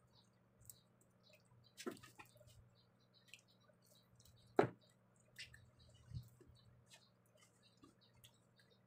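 Quiet, wet eating sounds of someone eating rice and fried fish with his hands: scattered small smacks and clicks from mouth and fingers, the sharpest about four and a half seconds in.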